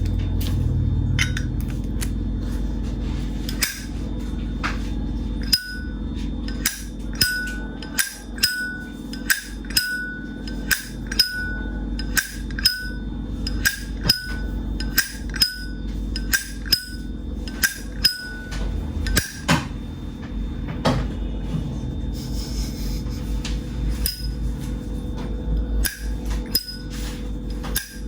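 Vintage 1981 Zippo lighter's hinged lid being flipped open and snapped shut over and over. Each flip gives a sharp metallic click with a short ring, about one to two a second, thinning out near the end.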